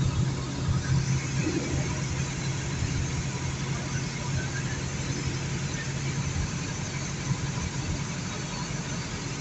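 Interior noise of a moving bus: a steady low engine drone, strongest in the first second or two, under an even wash of road and wind noise.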